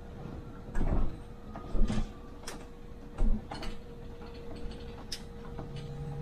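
Inside a MAN Lion's City hybrid city bus: a steady hum with a thin constant tone, broken by irregular knocks and rattles about once a second.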